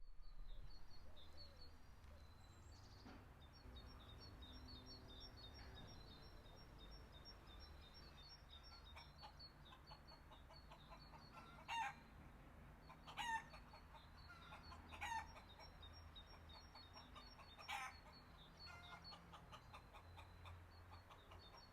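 Chickens calling: four short, louder clucks spaced a second or two apart, over faint, steady high-pitched chirping of small birds.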